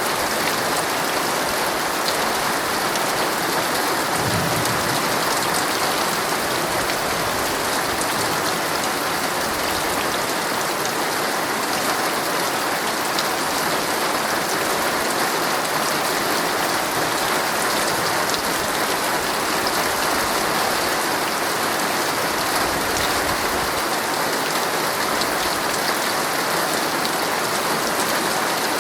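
Heavy rain drumming steadily on a tent's fabric, a dense hiss sprinkled with the ticks of individual drops striking the canvas.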